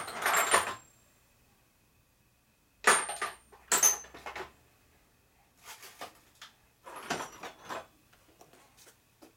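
Steel sockets clattering and clinking as they are rummaged through and set down on the metal bench. A burst of clatter at the start, a pause, then two loud clanks that ring briefly about three and four seconds in, followed by lighter clinks.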